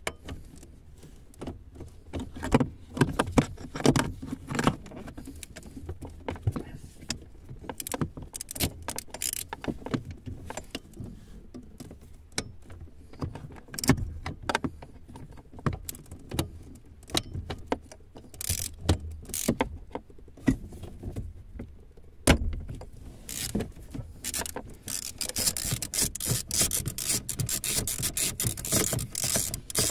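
Metal tools and screws clicking, clinking and knocking against the plastic housing and trim under a car's dashboard while the blower fan is being unbolted. Irregular handling knocks are followed near the end by a fast, continuous run of clicks.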